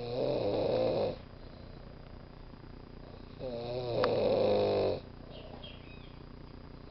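A person snoring: two rasping inhaled snores, each about a second or more long, with quiet breathing between them. The second snore, about three and a half seconds in, is longer and wavers in pitch.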